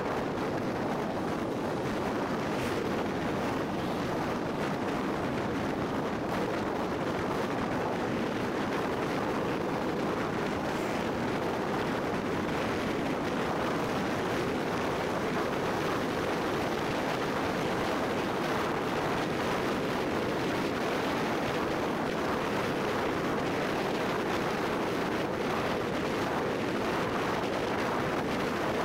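Steady road and wind noise of a car travelling along a highway: an even rushing hiss with no distinct engine note.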